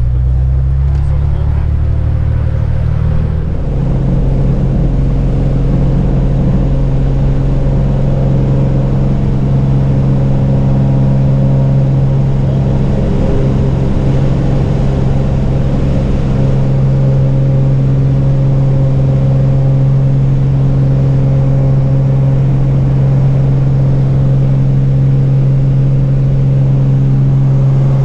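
Single-engine propeller plane's engine at take-off power, a loud steady drone heard from inside the cabin through the take-off roll and climb. Its note changes about three and a half seconds in, then holds steady.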